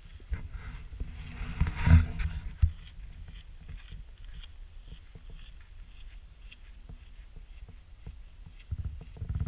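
Wind buffeting a camera microphone as a low rumble, with a strong gust about two seconds in and another near the end, over the light crunch of footsteps on a gravel path.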